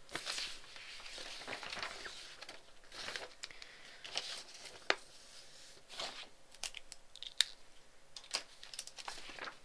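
Crinkling and rustling in uneven bursts, with scattered sharp clicks and taps.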